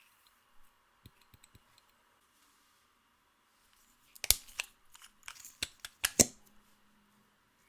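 Clear slime being pressed and worked by hand, giving sharp sticky clicks and pops: a few faint ones about a second in, then a dense run of crackling clicks for about two seconds past the middle.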